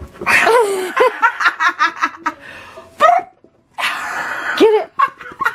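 A person laughing in several bursts of quick, breathy ha-ha sounds, with short gasps between.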